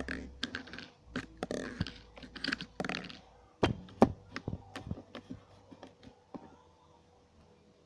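Slime being squeezed and stretched by hand, giving a quick run of wet clicks and pops that thin out after about six seconds.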